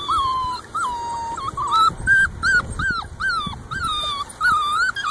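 Young Brittany puppies whimpering: a string of short, high-pitched whines that bend up and down in pitch, two or three a second.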